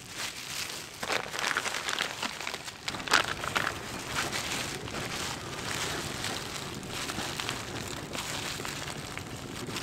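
Plastic crinkling and rustling with small crackles, from disposable plastic gloves handling raw lamb ribs as marinade is rubbed in.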